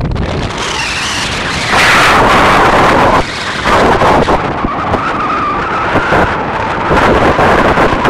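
Strong wind buffeting the microphone, surging in loud gusts, with a faint wavering whistle now and then.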